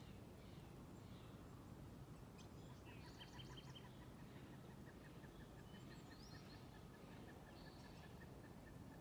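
Faint birdsong over a steady low background noise: scattered high chirps, and from about three seconds in a long even series of quick repeated notes that runs on past the end.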